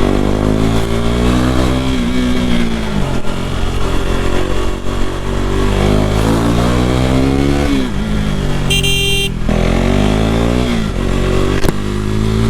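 KTM RC390's single-cylinder engine through an aftermarket fake Akrapovic slip-on exhaust with the dB killer pulled out, revving up and dropping back three times. A brief high-pitched tone sounds about nine seconds in.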